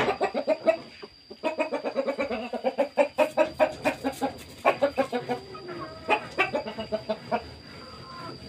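Chickens clucking, a rapid run of short calls that pauses briefly about a second in, with a steady thin high whine behind.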